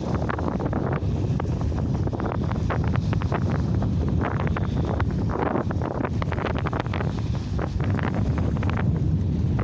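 Heavy wind buffeting the microphone, a steady low rumble, with sea waves washing and splashing through it in short irregular crackles.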